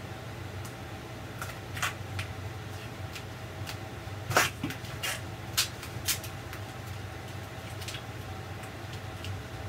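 Hands fitting a self-adhesive foam 3D brick wall panel: a handful of sharp taps and clicks, the loudest a little before halfway, over a steady low hum.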